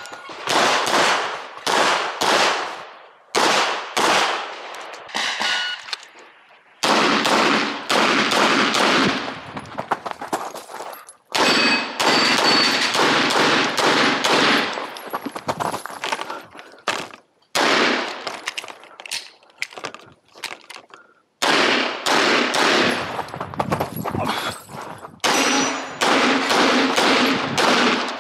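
9mm Glock 48 pistol fired in rapid strings of shots, each report trailed by echo, with short pauses of about a second between strings.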